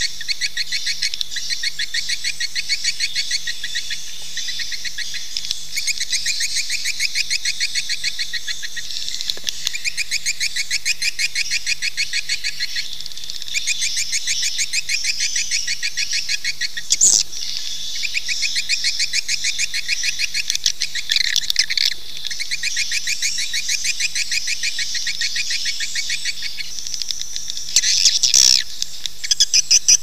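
Swiftlet calling sound (suara panggil walet): a dense, continuous chorus of rapid high twittering chirps from many swiftlets, the kind of recording played to lure swiftlets into a swiftlet house to nest. Two sharper, louder calls stand out, one about halfway and one near the end.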